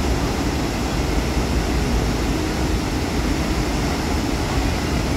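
Athirappilly Falls, a large waterfall, heard close up: a steady, loud rush of falling water, heaviest in the low range.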